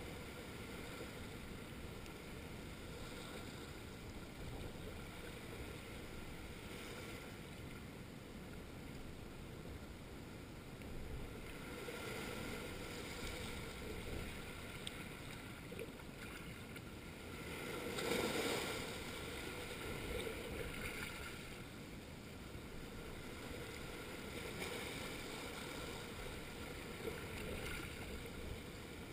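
Small sea waves washing in over a flat rocky shore, a steady wash of surf that swells into a louder surge about 18 seconds in.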